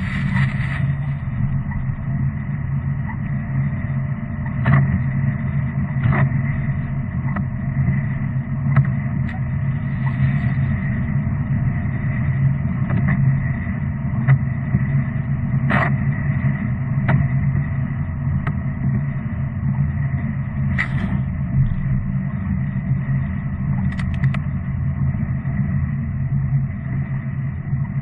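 Steady drone of a car driving on a wet road, heard from inside the cabin. A brief hiss of seawater spray hits the windscreen right at the start, and a few sharp knocks come through at intervals.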